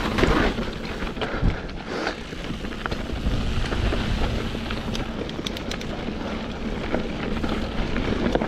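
Wind buffeting the microphone over the rumble of mountain bike tyres rolling down a rocky trail, with scattered clicks and rattles from the bike.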